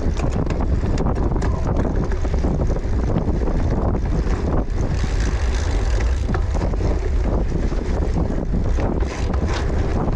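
Wind buffeting the microphone over a steady low rumble from a cyclocross bike being raced over rough ground, with frequent small rattles and clicks.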